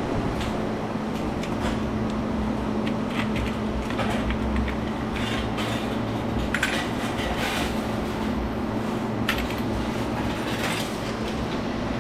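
Scattered metal clinks and rattles as a light fixture is taken apart with a nut driver, over a steady low mechanical hum.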